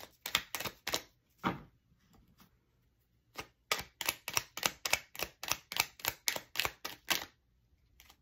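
Tarot deck being shuffled by hand: quick, rhythmic slaps of the cards, about five a second, in two runs with a pause of about two seconds between them.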